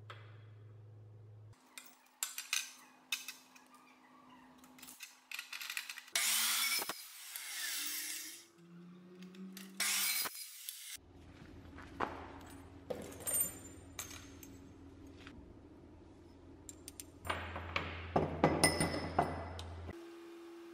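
Metal-working sounds: taps and clanks of square steel tubing and hand tools, and an abrasive cut-off saw cutting through square steel tubing in a few loud stretches of harsh grinding noise.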